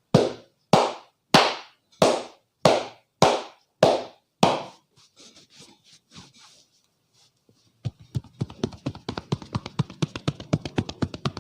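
Hand slaps of a barber's head massage: eight sharp slaps at an even pace, about one and a half a second, then after a pause a fast run of lighter hand taps, several a second.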